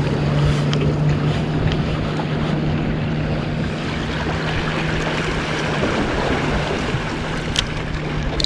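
A boat engine running steadily with a low hum, mixed with waves and wind noise on the microphone; a few sharp clicks near the end.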